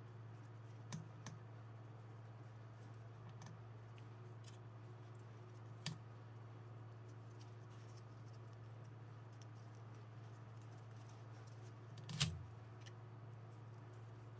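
Sparse faint clicks and light knocks of a cordless drill's greasy plastic gearbox parts being handled and fitted together, with one louder knock about twelve seconds in, over a steady low hum.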